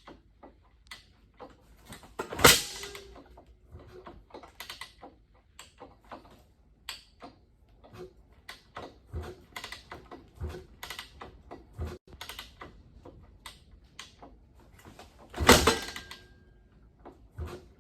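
Kawasaki KX500 two-stroke dirt bike, choke on, being kick-started without firing: two heavy kicks, about two and a half seconds in and about fifteen seconds in, that turn the engine over but do not start it. Light clicks and knocks of handling the bike between them.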